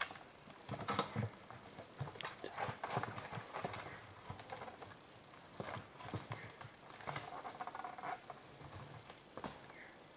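Black bear rummaging at a bait barrel: irregular knocks, scrapes and crunches as it paws at the barrel and logs and pulls the barrel over onto its side.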